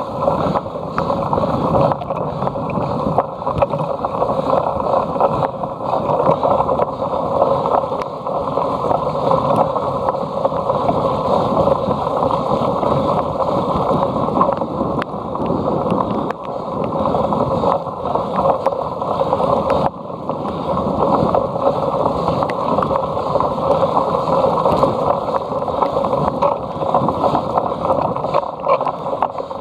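Muffled, steady rushing of wind and tyres from a cyclocross bike being ridden, heard on the rider's own camera.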